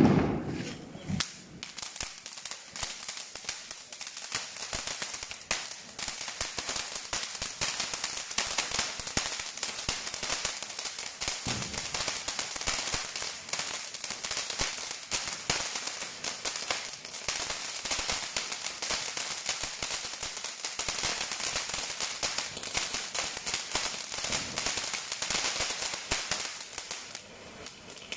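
Hercules Red Label tin fountain firework spraying sparks: a steady hissing rush dense with rapid crackling pops. It starts with a sharp burst as it catches and runs on without a break.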